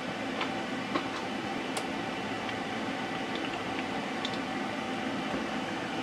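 Steady mechanical hum, like a kitchen fan, with a few faint light ticks in the first two seconds.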